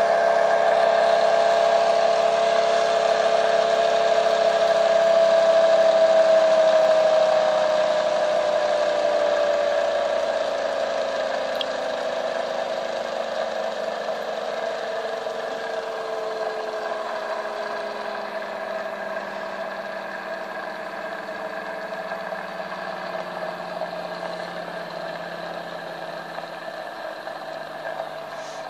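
Homemade Bedini-style motor running with a whine made of several tones. The whine slowly falls in pitch and grows quieter as the rotor slows down.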